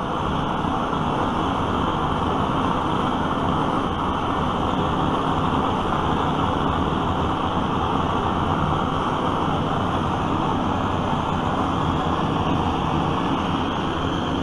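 Vintage brass gasoline blowtorch burning, its pressurised flame giving a loud, steady rushing hiss.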